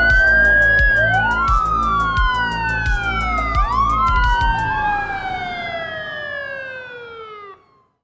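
Several overlapping fire engine sirens wailing, each rising quickly and then sliding slowly down in pitch, over background music with a steady beat. The music stops about halfway, and the sirens fade out just before the end.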